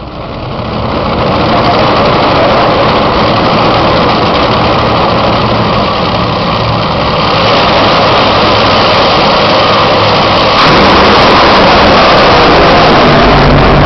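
Two Top Fuel dragsters' supercharged nitromethane V8 engines running very loud. About ten and a half seconds in it steps up louder still as the pair launch down the strip.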